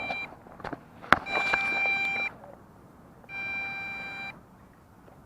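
Electronic beeper sounding long, steady beeps of about a second each, repeating every two seconds, with a sharp click between the first two beeps.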